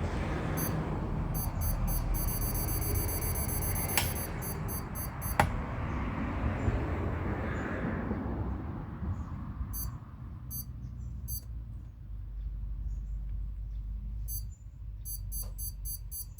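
Digital torque wrench beeping in rapid high-pitched pulses, its signal that the set torque is being reached, in three groups; two sharp clicks come about four and five seconds in.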